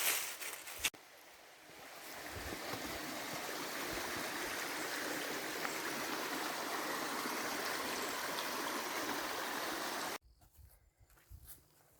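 Rushing water, a steady hiss-like noise that fades in over the first couple of seconds and stops abruptly about ten seconds in. It is preceded by a few sharp knocks at the very start.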